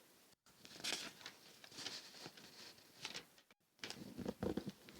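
Irregular light rustling and scratching of paper being handled and written on by hand. The sound cuts out completely twice, briefly.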